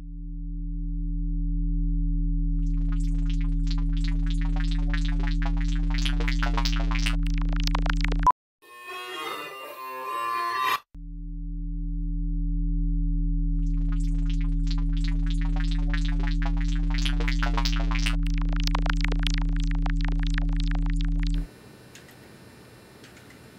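Electronic music: a steady synthesized drone of low sine tones fades in, and a thickening cluster of high chirping tones sweeps over it. It cuts off abruptly about 8 seconds in, a short burst of a different sound follows, and then the drone and chirps return. Near the end the music stops and only a faint steady hum is left.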